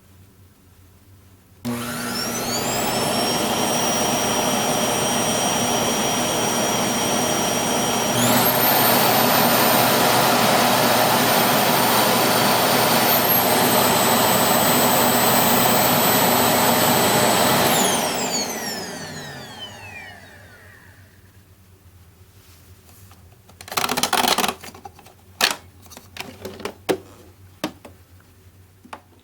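Sharp EC-BP7 cyclone vacuum cleaner switched on, its motor whine rising as it spins up. It steps up to a higher, louder pitch about a third of the way in, drops slightly around the middle, then is switched off and winds down with a falling whine. A few sharp knocks and clatters follow near the end.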